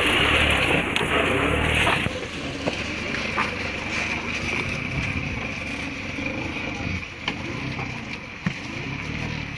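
Old truck engine running at low revs on a steep, slippery descent, with a rushing noise over it for the first two seconds that drops off abruptly, then a steadier drone with occasional clicks and knocks.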